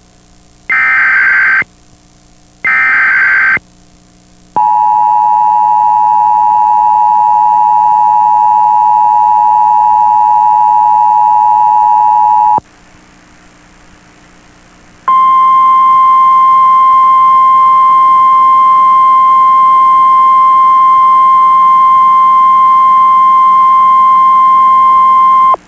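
Emergency Alert System tones. It opens with two short, screeching bursts of the SAME digital header, about a second each. Then comes about eight seconds of the two-tone EAS attention signal (853 and 960 Hz together), a pause of about two seconds, and about ten seconds of a single steady tone just above 1 kHz, the NOAA Weather Radio 1050 Hz warning alarm.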